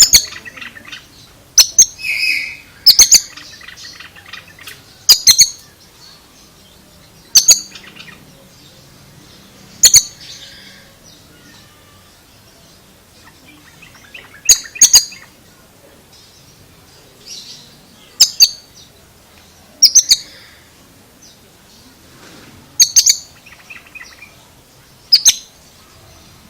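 Oriental magpie-robin (kacer) calling: short, sharp, high-pitched notes, often in quick pairs, repeated every two to three seconds, with softer twittering between.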